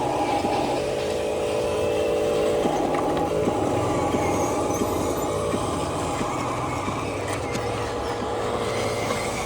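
Small electric motors and plastic gearboxes of radio-controlled construction models whining steadily, their pitch shifting a little as the motors start and stop.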